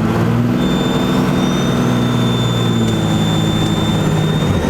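12-valve Cummins diesel pulling under light throttle, with its compound turbos spooling up into a loud high whistle about half a second in that holds, then falls away near the end as the engine note drops.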